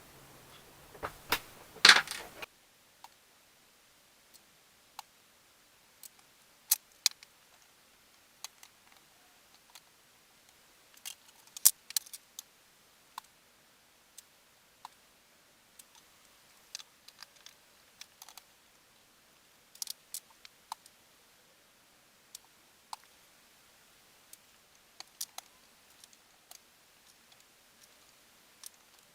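Scattered sharp clicks and light taps at irregular intervals, a few close together at times, like small hard objects being handled. The loudest cluster comes about two seconds in, over a low hum that cuts off abruptly just after.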